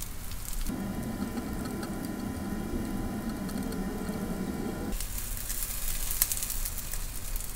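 Cooking sounds: food sizzling, with a steadier, lower noise taking over for about four seconds in the middle before the crackly sizzle returns.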